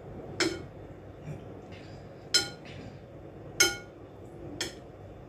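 Metal kitchen utensil striking the rim of a dish, four separate ringing clinks a second or so apart; the middle two are the loudest and the last is fainter.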